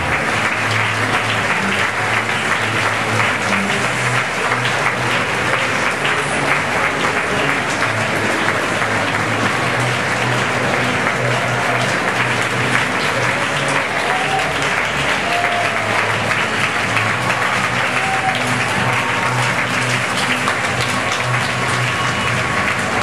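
Sustained audience applause, steady throughout, over runway music with a repeating bass pattern.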